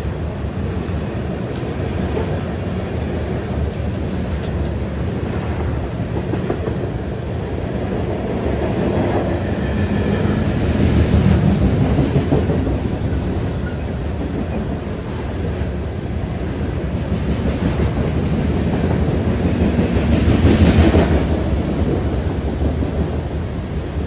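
BNSF freight train rolling past, its steel wheels rumbling along the rails in a steady din that swells louder twice, about ten seconds in and again about twenty seconds in.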